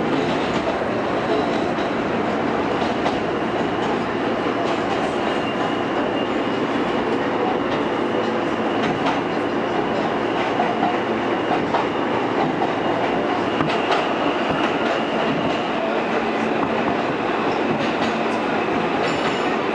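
R160 subway car running at speed, heard from inside the car: a steady rumble of wheels on rail with scattered clacks over rail joints and a faint high whine through much of it.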